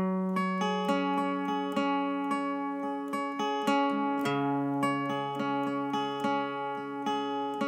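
Background music: an acoustic guitar picking single notes, about three a second, over held low notes. The bass drops to a lower note about four seconds in.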